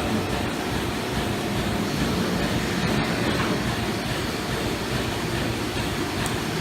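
TIG welding a bead onto the steel insert of an injection-moulding machine nozzle: a steady, even hiss with a low rumble underneath.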